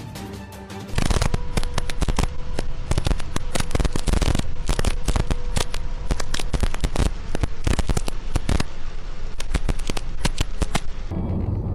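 Heavy rain hitting a car's windscreen and roof: a loud, dense, irregular crackle that starts about a second in, after a moment of music.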